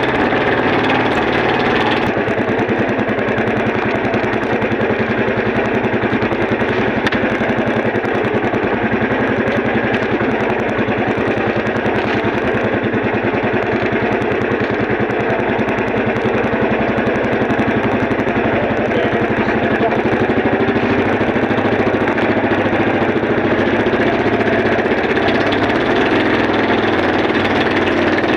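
Small engine running steadily with a fine, rapid throb; its tone changes slightly about two seconds in.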